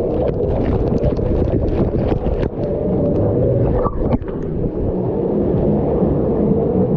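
Steady, loud din of an indoor water park hall: a low rumble of water with many distant voices and scattered clicks.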